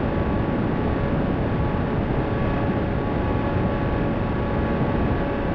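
Airflow rushing over the onboard camera of a Bixler RC foam plane in flight, with a faint steady whine from its electric motor and propeller.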